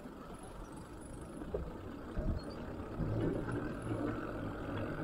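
A motor vehicle's engine: a low hum that comes in and grows louder about three seconds in, over steady outdoor noise.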